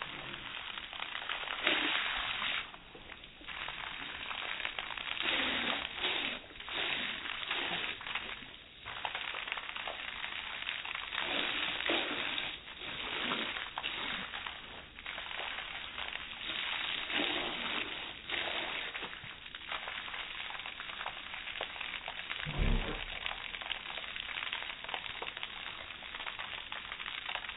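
Hose water stream splashing and spattering as a dog bites at it, played back slowed down in slow motion, so the splashing comes through as a dull, surging hiss. A single low thump near the end.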